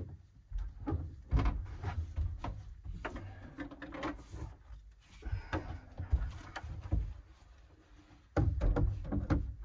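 Scattered knocks, bumps and scrapes of a portable SetPower fridge being lifted, slid and set into place on a plywood platform inside a small camper, with a louder run of bumping near the end.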